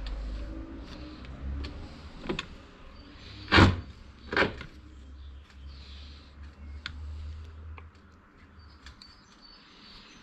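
Clicks and knocks of a tractor starter motor's parts being handled and fitted together, with two sharper knocks about three and a half and four and a half seconds in, over a low steady hum.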